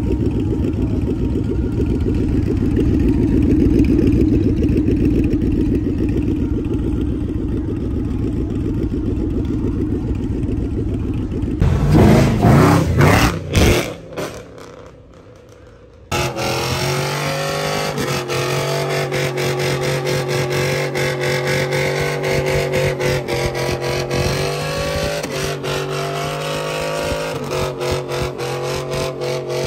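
Car engines revving. A steady rumble runs first, with a burst of sharp revs about twelve seconds in. After a short quiet gap, an engine is held at steady high revs while a car does a burnout with its wheels spinning.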